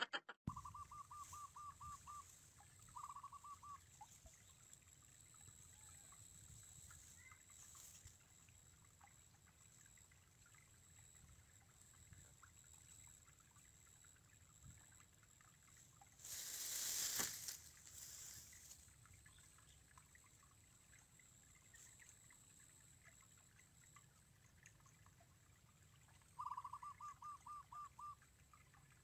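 Near silence at the waterside. A faint call of rapid repeated notes, about five a second, comes near the start and again near the end, and a short rush of noise comes about two thirds of the way through.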